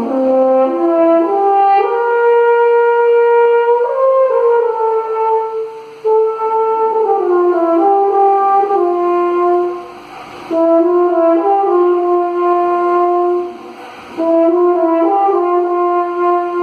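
Solo French horn playing a slow line of held notes that step up and down in pitch, with short breaks for breath about every four seconds.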